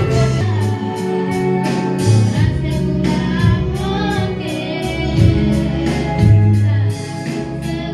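Live band rehearsal: young female voices singing a melody over keyboard, guitars and hand drums, with a steady drum beat and bass line.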